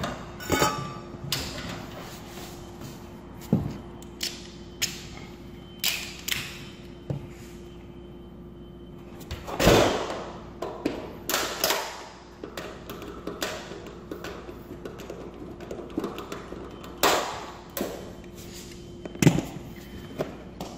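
Irregular clicks, taps and clunks of an electric baseboard heater's sheet-metal housing being handled while its end cover is taken off, with a louder knock about halfway through and another near the end.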